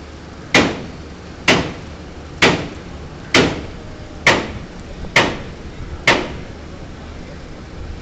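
Pile-driving hammer striking seven times at an even beat, a little under a second apart, each a sharp clank with a short ringing tail, over a steady low rumble.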